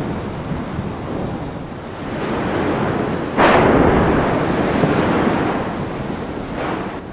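Volcanic eruption sound effects: a deep continuous rumble, with a sudden loud blast about three and a half seconds in that dies away slowly.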